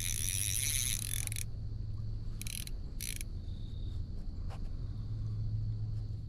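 Spinning reel clicking and whirring as a hooked fish is played: a fast run of clicks for the first second and a half, then two short bursts about two and a half and three seconds in.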